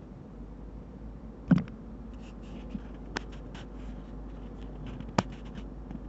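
Handling noise of small objects on a cloth-covered table: a dull thump about a second and a half in, then two sharp clicks and scattered faint ticks over a low steady hum.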